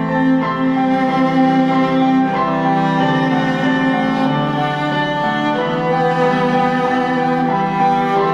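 Viola and piano duet: the viola plays long bowed notes over piano accompaniment, the notes changing every second or so.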